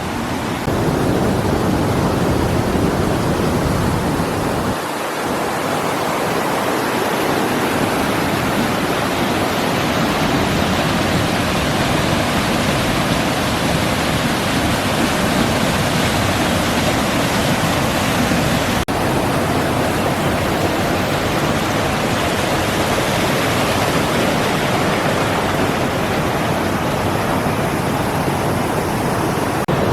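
Waterfall rushing steadily: a loud, even wash of falling water.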